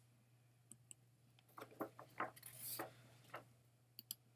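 Near silence: faint room tone with a low steady hum and a scattering of soft clicks and small ticks.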